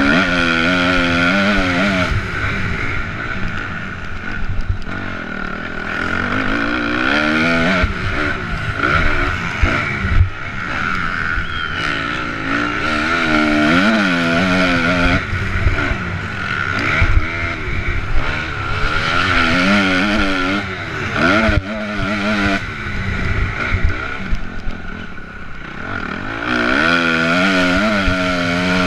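Honda MX2-class motocross bike engine under race riding, heard from a helmet-mounted camera. The engine pitch climbs and drops again and again as the rider accelerates, shifts gear and backs off into corners.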